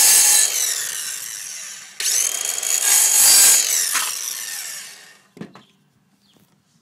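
Corded circular saw cutting a lengthwise slot in a plastic pipe. The motor runs loud and winds down with a falling whine, starts again suddenly about two seconds in for another pass, then spins down by about five seconds. A single thump follows.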